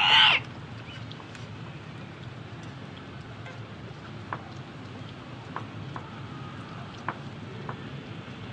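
Wood fire crackling in a mud chulha under an iron griddle: a steady low rush with scattered sharp pops, about one every second. It opens with a brief loud high-pitched sound lasting under half a second.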